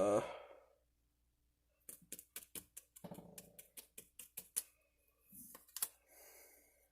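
Small lock picks and their packaging being handled: a quick run of light clicks and taps, with a few more near the end.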